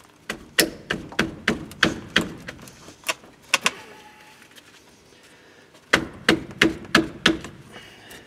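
Ratchet wrench clicking on a 13 mm brake caliper bolt as it is worked loose, in two runs of sharp clicks about three a second, the second run shorter.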